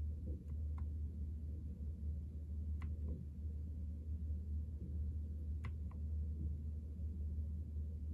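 A few sharp key clicks from a NuPhy Air75 V2 low-profile mechanical keyboard, some in quick pairs of press and release, every two to three seconds, over a steady low hum.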